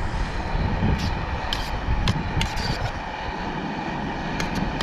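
Metal utensil clicking and scraping against a metal camp cooking pot while stirring or eating fish and baked beans, several sharp clicks over a steady rushing background noise with a low rumble.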